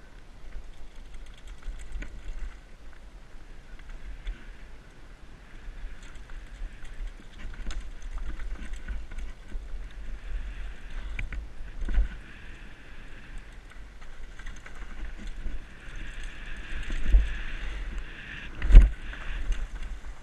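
Canyon Torque freeride mountain bike riding fast down a dirt trail, heard from a helmet-mounted camera: wind rumble on the microphone with the tyres and bike rattling over the ground. A few hard knocks from bumps break through, the loudest near the end.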